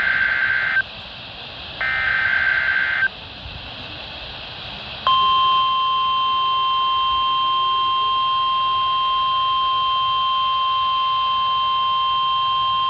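NOAA Weather Radio SAME digital header: two short warbling data bursts of about a second each, with radio hiss between them. About five seconds in, the steady 1050 Hz NWS warning alarm tone begins and holds, sent as the weekly test of the radio warning alarm.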